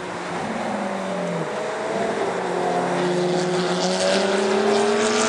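Sports car engines on a race track as cars go past: one engine's note falls away in the first second and a half, then another engine's note rises steadily and grows louder as that car accelerates.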